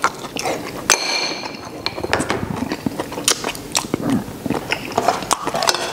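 A person biting and chewing braised beef steak close to a clip-on microphone: wet, irregular mouth sounds with many short, sharp clicks.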